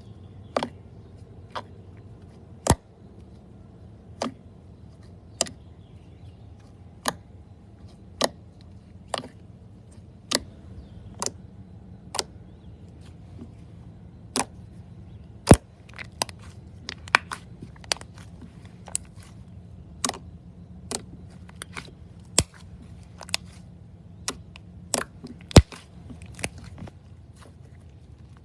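Slime being pressed by hand, giving sharp, irregular pops and clicks, about one a second at first and coming faster in the second half, over a low steady hum.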